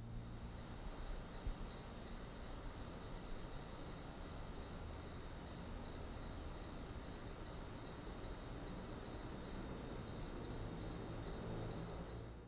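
Night insect chorus of crickets chirping in pulses over a steady hiss, with a faint high tick roughly once a second. The whole bed cuts off abruptly.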